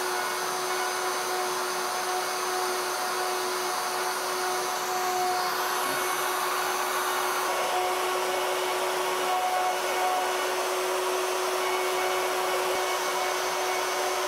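Router motor on a CNC Shark running steadily at high speed with a constant whine and hiss as its bit begins carving into the wooden sign board.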